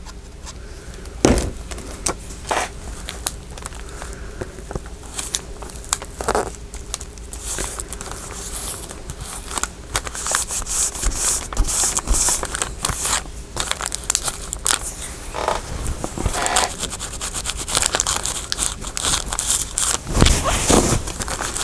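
Paper being handled on a work table, crinkling and rustling with scattered light taps and clicks. The handling grows busier and louder about a third of the way in.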